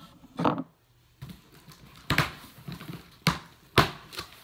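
Cardboard packaging handled while a boxed subwoofer is pulled out of its shipping carton: four sharp knocks, the last the loudest, with cardboard scraping and rustling between.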